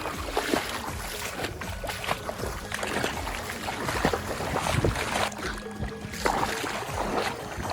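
Irregular water splashes and knocks around a small boat on the river, with a steady noisy wash underneath.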